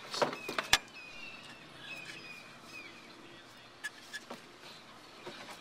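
Small birds chirping over and over, short falling chirps, with a few sharp knocks in the first second and a couple more later.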